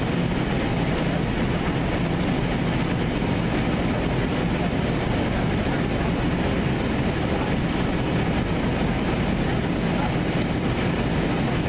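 Passenger airliner cabin noise in flight: the engines and the airflow past the fuselage make a steady, even, deep rush.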